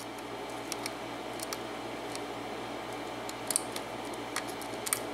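Scattered small metallic clicks of a lock pick working the pins inside a six-pin Arrow pin-in-pin cylinder lock while it is being single-pin picked, about seven ticks over a steady low hum.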